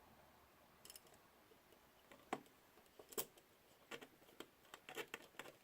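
A handful of faint, scattered clicks and taps of small plastic and metal parts being handled and fitted while a drone's camera gimbal is put back together.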